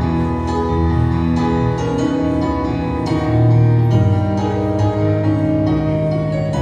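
Mixed high-school choir of young men and women singing held chords in harmony, the chord changing every second or two.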